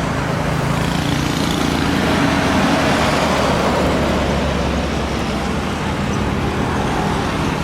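Steady, loud engine roar with a low rumble underneath, swelling a little about two seconds in.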